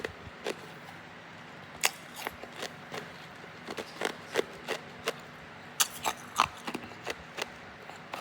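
Hard ice being bitten and crunched between the teeth: irregular sharp cracks in clusters, with a loud crack about two seconds in and a burst of crunching about six seconds in.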